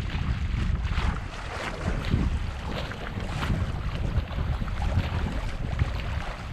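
Wind buffeting the microphone in gusts, with water rushing and splashing along the hull of a small sailing yacht under way.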